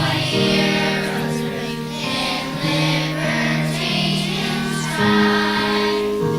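A choir of third-grade children singing a song together, moving through long held notes.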